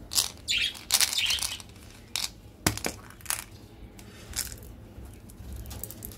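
A hollow red plastic ball container being handled and pulled open, giving a handful of sharp plastic clicks and rustles in the first three and a half seconds. After that come fainter taps as the small coated candies inside shift around.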